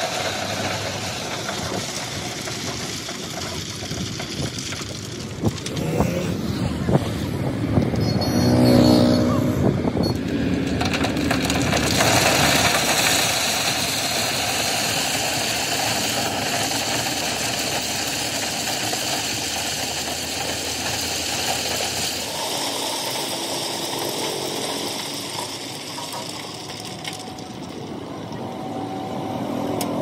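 Dump truck's diesel engine running as crushed stone pours out of its raised tipper bed onto the road, a continuous rattling rush of rock. A few sharp knocks come a few seconds in.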